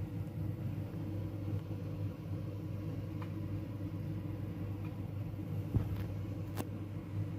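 Steady low background hum with a few faint clicks; it cuts off abruptly at the end.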